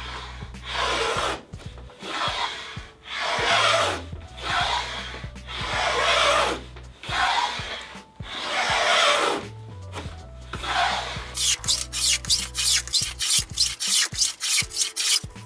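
Stanley 45 combination plane scraping along wood in a series of long rubbing strokes about a second each, then a quick run of short scratchy strokes near the end, over quiet background music.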